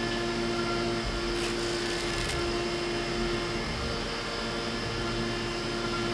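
CNC milling machine cutting with a half-inch end mill, roughing a metal block under coolant spray: a steady cutting tone over a hiss. The tone weakens a little past halfway, and brief sharper hisses flare up twice early on.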